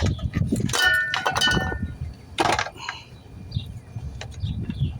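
Metal hand tools clinking and knocking against a small chainsaw as a socket and wrench are worked at its spark plug, with a short ringing clink about a second in and a sharper knock halfway through.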